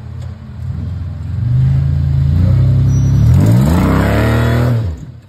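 Rock crawler buggy's engine revving hard under load while climbing a rock ledge, its pitch rising near the end, then the throttle dropping off suddenly about five seconds in.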